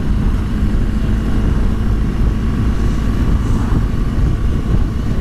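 BMW R1200GS liquid-cooled boxer twin under way at a steady speed, the engine running evenly under heavy wind and road noise.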